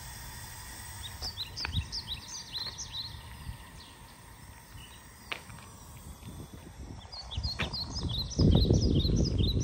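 Small songbirds chirping in two bouts of quick, short notes. A loud low rumble comes in near the end.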